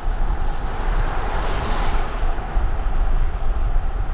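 Car driving along a road with the driver's window open: steady tyre and road noise with engine rumble, and wind buffeting the microphone. The noise swells briefly around the middle.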